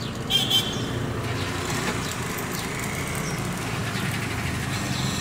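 Steady drone of road traffic with small birds chirping in short, thin notes, and a louder burst of high chirping about half a second in.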